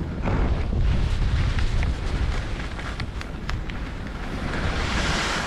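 Wind rushing over the microphone while skiing fast downhill, with skis scraping over wind-crusted snow and a few small clicks. Near the end comes a louder hiss of skis skidding across the snow.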